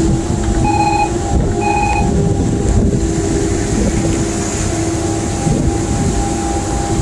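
Tugboat's engines running steadily underway, a constant drone with a steady hum in it, with wind rumbling over the microphone. Two short electronic beeps sound about a second apart near the start.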